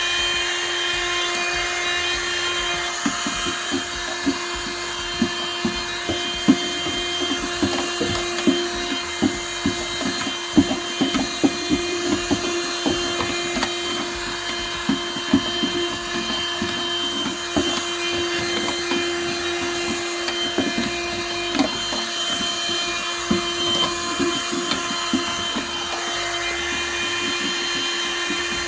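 A small electric motor spins up and runs at one steady pitch, with irregular clicks and scraping against it, as the battery area is cleaned up.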